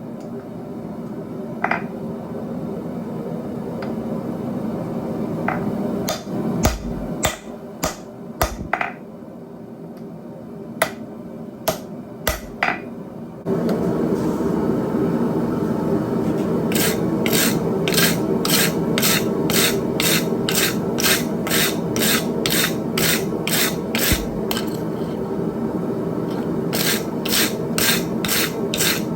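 Hand file rasping on a steel blade, a few scattered strokes and then a steady run of about two to three strokes a second, with a short pause near the end. Under it runs a steady hum that gets louder about halfway through.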